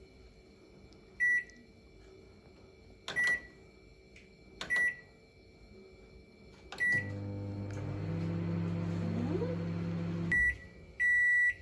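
Microwave oven: three short keypad beeps. About 7 s in, a click starts the oven, which runs with a steady hum for about three and a half seconds while heating water. It stops with a click, and a long end-of-cycle beep sounds near the end.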